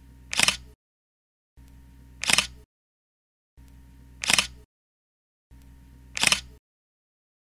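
Camera shutter clicks repeating about every two seconds, four in all, each a short sharp snap. Each click sits in about a second of faint hum, with dead silence between.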